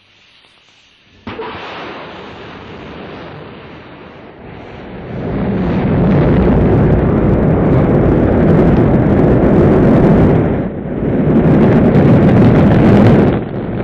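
Rocket engines igniting and lifting off: a sudden start about a second in, swelling about five seconds in into a loud, deep, steady rumble that dips briefly twice near the end.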